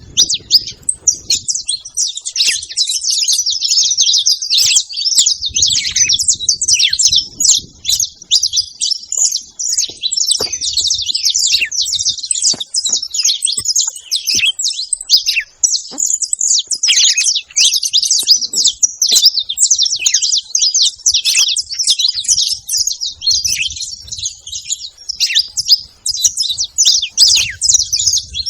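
A group of saffron finches chirping and singing together: a dense, unbroken chatter of many overlapping high calls.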